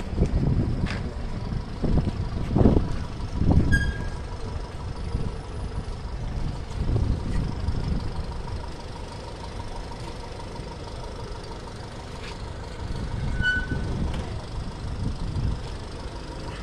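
Van engine running slowly as the vehicle creeps forward, a steady low rumble with several louder low thumps in the first few seconds. Two brief high chirps, about four and thirteen seconds in.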